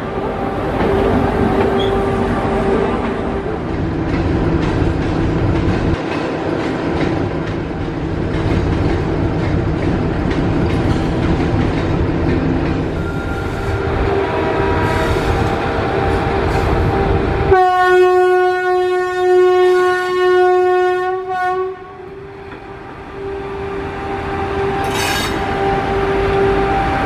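WCAM3 electric locomotive moving off with its train: wheels rumbling and clacking over the rails under a steady electric whine from its DC blowers. About two-thirds of the way through, it sounds one long horn blast of about four seconds, the loudest sound. After the blast the blower whine carries on as the locomotive rolls slowly past.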